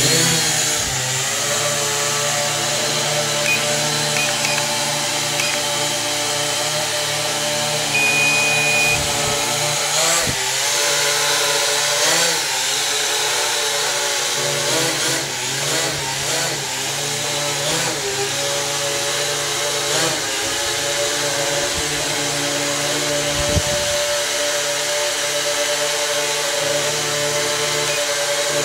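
Small ProMark VR quadcopter's propeller motors starting up on auto-launch and then running as a steady multi-tone whine while it flies, with the pitch wavering up and down several times as it is steered.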